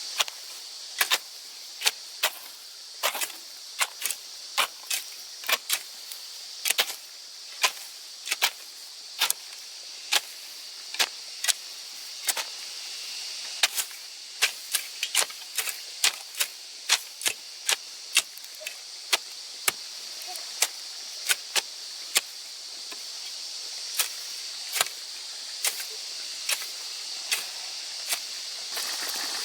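A long series of sharp clicks or knocks, irregular at about one to two a second, over a steady high hiss.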